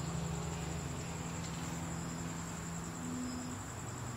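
Crickets trilling steadily in the background over a low steady hum.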